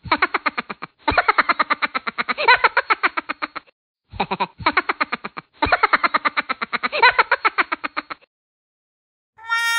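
Cartoon laughter from a TV clip: Patrick Star laughing in a rapid, pulsing cackle. It comes in four stretches with short breaks and stops about eight seconds in.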